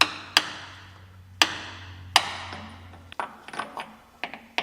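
Hammer blows on metal: four sharp ringing strikes over about two seconds, then a quick run of lighter taps.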